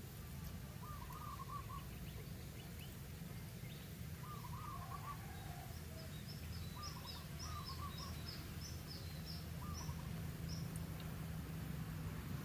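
Wild birds calling. One bird repeats a short call of a few quick notes every two to three seconds, and a second bird twitters high and fast for a few seconds in the middle. A low, steady rumble runs underneath.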